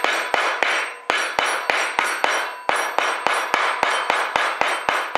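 A hammer strikes a steel hollow punch in a steady rhythm, about three blows a second, each with a metallic ring. The punch is cutting round shotgun wads out of a sheet of wad material on a wooden block.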